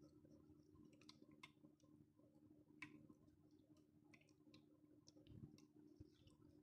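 Near silence: room tone with a faint low hum and scattered faint clicks.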